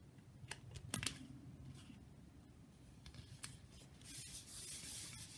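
Faint paper sounds: a few light clicks as a sheet of cardstock is set in place on a card base, then, from about four seconds in, a soft even rubbing as hands smooth the cardstock down onto tape-runner adhesive.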